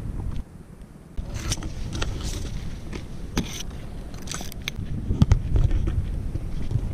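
Outdoor wind rumbling on the microphone, with scattered short scrapes and rustles from wet grass and plants brushing close to it.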